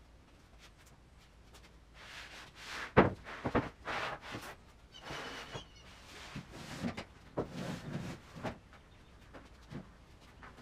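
Sheets of plywood being handled and stacked: irregular thuds and scraping as boards are slid and set down on a pile, with footsteps. The sharpest knock comes about three seconds in.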